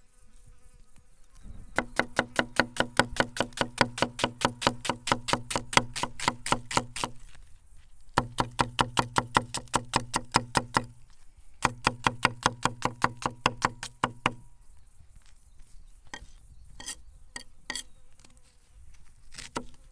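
Chef's knife chopping onion on an end-grain wooden board: three fast, even runs of knocks at about five strokes a second, then slower single cuts near the end.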